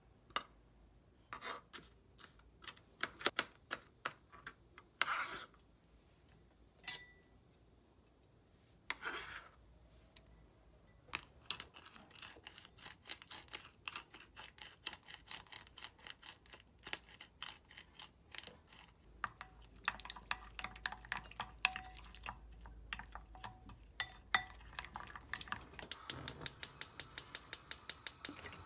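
Kitchen work: utensils clicking and clinking against dishes and pans in scattered sharp taps, ending in a quick, even run of taps.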